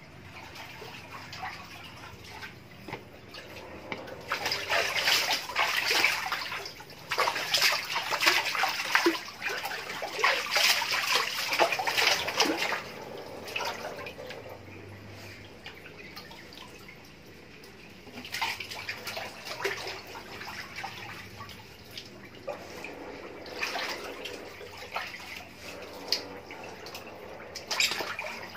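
An otter splashing and sloshing about in a shallow water-filled concrete trough, in irregular bursts. The splashing is heaviest through the first half, eases off for a few seconds past the middle, then picks up again with smaller splashes.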